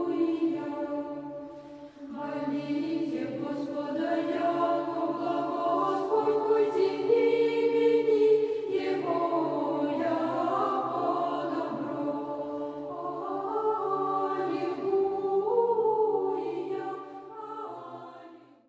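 A choir singing slow, sustained chant over a low held drone, fading out near the end.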